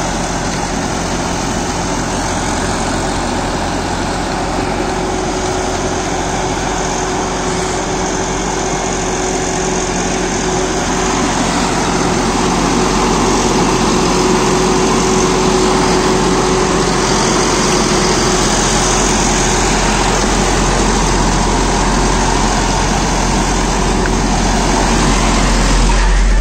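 John Deere 5075E tractor's 2900 cc common-rail diesel engine running steadily at about 1800 rpm, driving a rotary tiller through the PTO as it mulches banana stalks. It grows slightly louder about halfway through.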